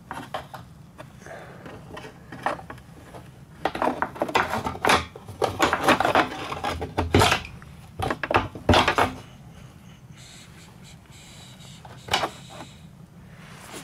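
Clattering, scraping and knocking of hands working in a car's open fuel tank access hole, against the plastic flange and the toothed locking ring, with the fuel line being moved. Most of it comes in a busy stretch from about four to nine seconds in, with one more knock near the end.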